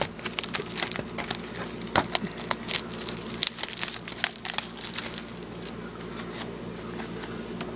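Plastic shrink-wrap crinkling and crackling as it is pulled off a DVD case, with many quick crackles in the first few seconds that thin out toward the end.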